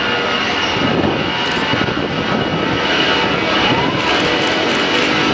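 Airliner's engines running loud and steady as the aircraft passes close, with a steady high whine over the broad engine noise.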